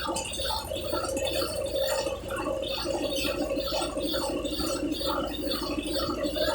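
Brastemp Ative 11 kg top-loading washing machine running its spin program: a steady hum with a rhythmic swishing rattle that repeats a few times a second.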